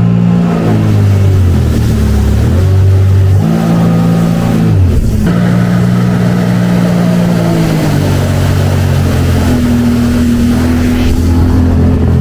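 Motorboat engine running hard, its pitch dropping and climbing again several times as the throttle changes.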